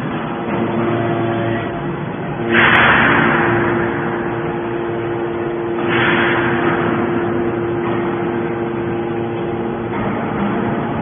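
Hydraulic scrap metal baler running: a steady machine tone, with two loud surges of rushing noise about two and a half and six seconds in that fade away.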